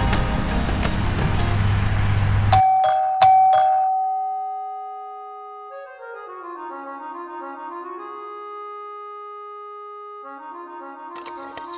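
Film background score: a dense music passage cuts off abruptly, then two bell-like strikes at the same pitch, about half a second apart, ring out and fade. A soft, slow melody of held notes follows.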